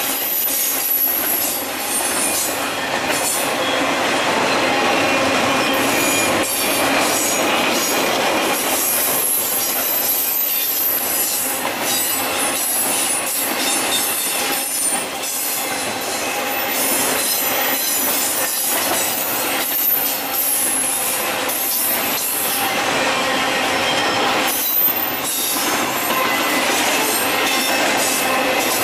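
Piggyback intermodal freight train of truck trailers on flatcars rolling steadily past: wheels clattering over the rails, with a high-pitched wheel squeal coming and going.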